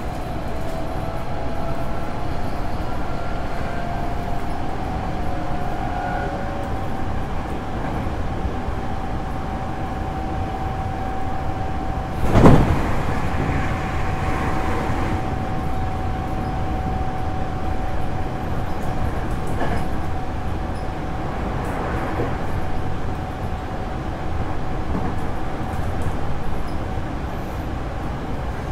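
Interior running sound of a Hankyu 8300 series electric train with Toyo GTO inverter control, travelling at speed: a steady rumble of wheels on rail and a thin steady whine, with the air conditioning running. There is one sharp, loud thump about twelve seconds in.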